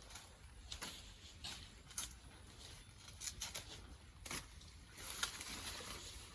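Irregular crackling and rustling of dry plantain leaves being handled and pulled away, a dozen or so short crackles over a faint hiss.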